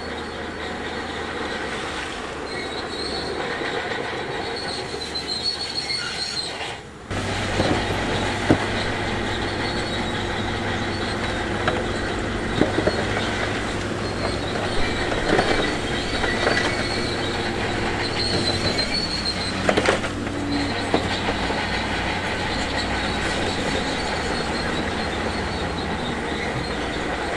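Shantui DH17C2 crawler bulldozer's diesel engine running steadily, its steel tracks squealing and clanking as it moves. The sound dips and cuts briefly about a quarter of the way in, then resumes.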